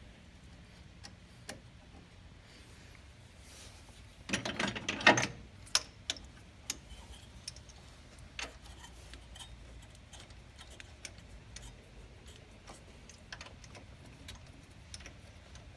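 Small metal clicks and clinks of a thermostat housing and its bolts being fitted by hand on a Ford flathead V8's water neck, scattered through, with a louder burst of clattering handling about four to five seconds in.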